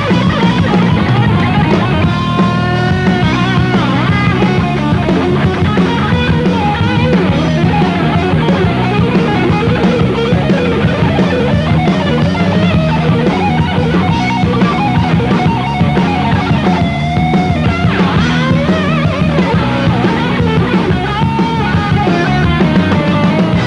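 Heavy metal band playing live: electric guitars over a drum kit, loud and continuous.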